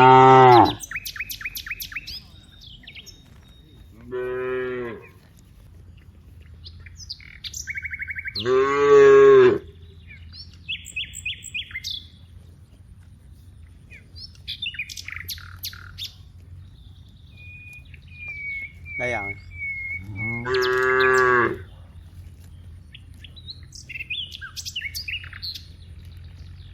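Cows mooing: four separate calls of about a second each, the loudest right at the start and about nine seconds in. Birds chirp between the moos.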